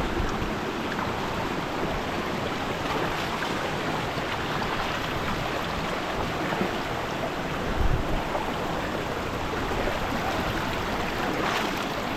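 Rushing water of a mountain river, a steady, even rush, with a brief low thump about eight seconds in.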